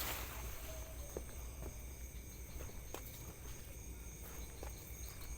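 Steady insect chirring, holding a few constant high pitches, over a low rumble, with a few faint clicks.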